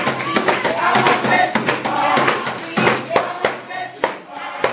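Several handheld tambourines shaken and struck in a steady rhythm, their jingles ringing on each beat, with hand-clapping and voices singing along.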